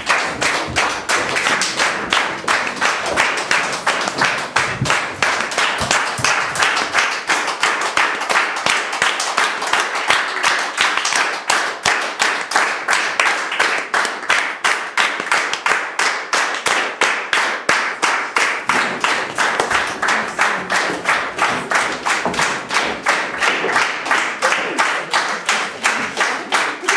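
Audience applauding, the many hand claps falling into a steady rhythm of claps in unison.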